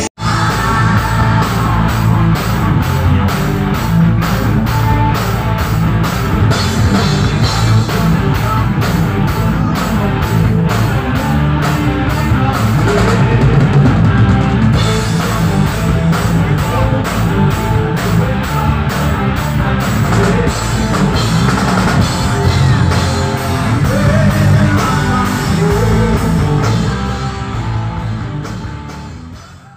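Live rock band playing: electric guitars over a steady drum-kit beat, fading out near the end.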